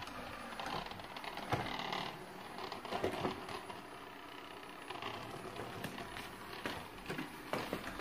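Coredy robot vacuum running steadily as it drives back toward its charging dock in return-home mode, with scattered clicks and knocks.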